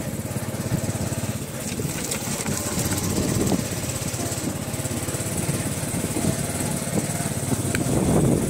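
Small Honda motorcycle's single-cylinder engine running at low riding speed, a steady putter.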